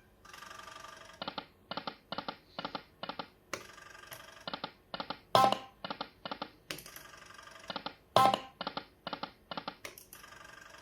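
Punters Choice Lightning Cash poker machine running through spins: a quick train of electronic clicks about three a second as the reels tick and stop. A loud sharp hit and a short whirr start a new spin every few seconds.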